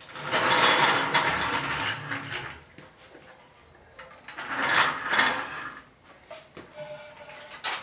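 Rapid mechanical ratcheting clatter in two runs: one lasting about two and a half seconds from the start, and a second of about two seconds starting about four seconds in. A few lighter clicks follow.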